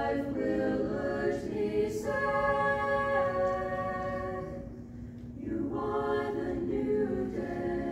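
Small mixed chamber choir singing a cappella in held chords; the phrase fades about five seconds in and a new phrase begins.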